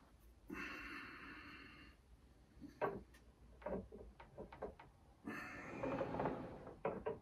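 Handling noises as a statue's swap-out weapon pieces are taken out and fitted: two longer rustling scrapes, about half a second in and about five seconds in, with a few light clicks and knocks between them.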